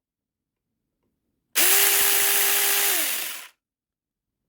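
Saker mini cordless electric chainsaw triggered once with no load: its motor and chain spin up quickly, run at a steady high whir for about two seconds, then coast down and stop.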